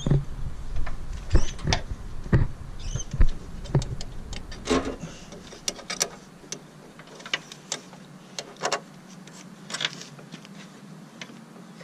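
Irregular clicks and knocks of a metal power steering line and its fitting being handled and pushed against the power steering pump as someone tries to start it in the thread; the line is bent and won't line up. The knocks are densest in the first few seconds and thin out after, over a steady low hum.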